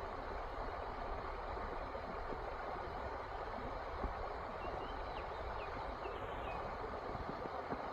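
Creek water flowing and splashing steadily over rocks, an even rushing sound with a low rumble beneath. A few faint, short high chirps come about five to six seconds in.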